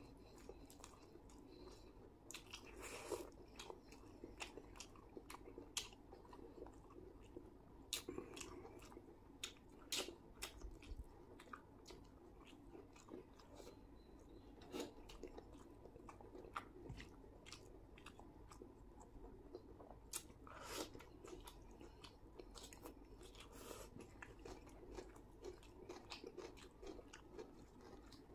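Close-miked chewing of chicken biryani, with wet mouth smacks and sharp clicks scattered throughout. A few of them are louder.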